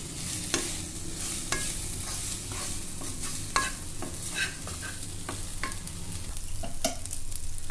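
Wooden spatula stirring fried idli pieces through an onion and capsicum masala in a nonstick kadai, the food sizzling in oil, with irregular clicks and scrapes of the spatula against the pan.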